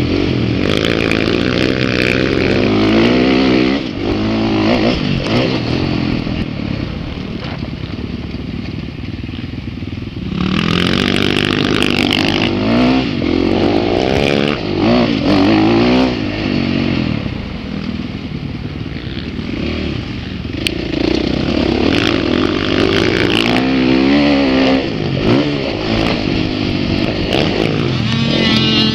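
Dirt bike engine heard on board while riding a motocross track, revving up hard and dropping off again and again as the throttle opens and shuts. It goes quieter for longer stretches with the throttle off about a quarter of the way in and again past the middle.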